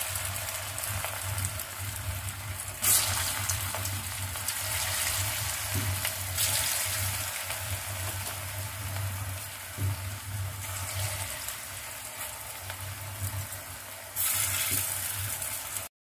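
Bottle gourd fritters deep-frying in hot oil in a steel wok: a steady sizzle over a low hum. The sizzle grows louder a few times and cuts off abruptly just before the end.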